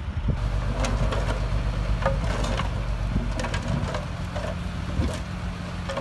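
Diesel engines of a small crawler bulldozer and a dump truck running steadily, with sharp metal clanks and knocks every second or so from the dozer's tracks and blade working the rocky fill.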